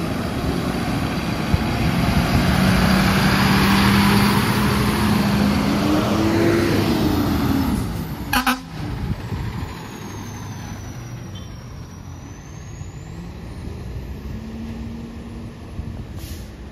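Fire truck driving past at close range: its engine and tyres grow louder over the first few seconds, then fade away. A sharp click comes about halfway through, followed by quieter road sound.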